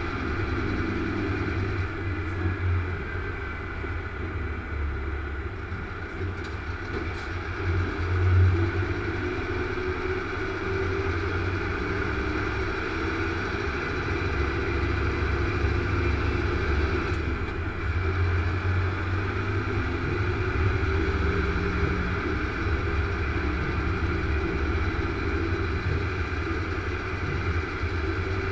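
Heavy truck's diesel engine and tyre noise heard from inside the cab at steady motorway cruising speed: a continuous low drone.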